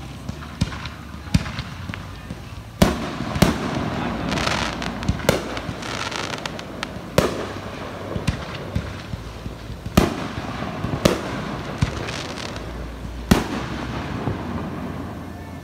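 Fireworks going off in a steady string of sharp bangs, a second or two apart, with crackling in between.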